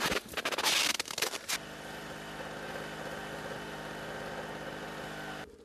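Crunching and scuffing in snow for about a second and a half, then an engine running at a steady idle, which cuts off abruptly near the end.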